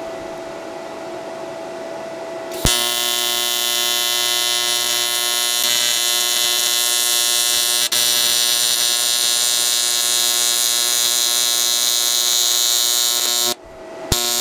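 AC TIG welding arc on aluminum from a YesWelder TIG 200P set to 120 Hz AC, a steady, harsh electric buzz. It strikes about three seconds in, runs for about ten seconds with a brief dip midway, cuts out near the end and strikes again for a moment.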